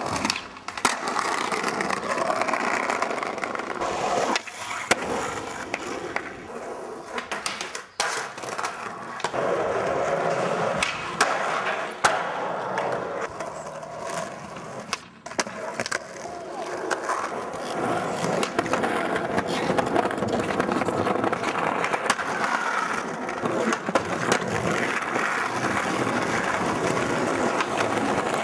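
Skateboard wheels rolling on concrete and brick, with sharp pops and landings of the board and scraping grinds on a ledge. The rolling noise changes abruptly every few seconds from one short clip to the next.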